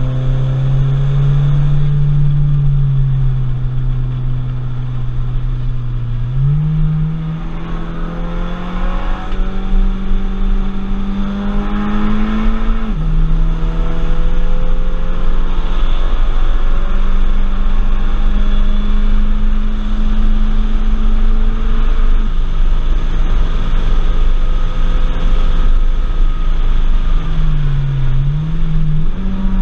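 Audi TT's engine heard from inside the cabin, pulling hard at track speed: the engine note climbs steadily, drops sharply about halfway through and again later as the throttle lifts or a gear changes, then dips and rises again near the end, over steady road and wind noise.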